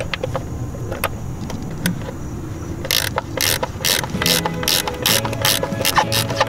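13 mm ratcheting box-end wrench clicking as it loosens the bolts of a BMW N54 engine's PCV valve housing. A few scattered clicks come first, then about halfway through a quick, even run of ratchet clicks, about four a second.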